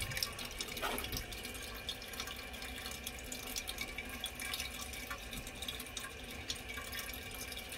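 Toilet tank refilling: a steady hiss of water running in through the fill valve of an old 3.5-gallon tank, with a few faint ticks and drips.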